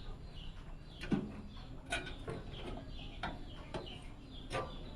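Scattered sharp clicks and light knocks, about five in a few seconds, of PC case parts and components being handled and fitted together.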